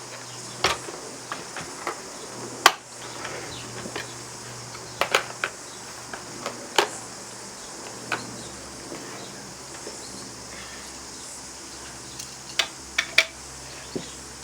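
Scattered sharp clicks and knocks of the plastic toy ship's parts being handled and fitted on, about eight in all, over a steady high insect chorus of crickets.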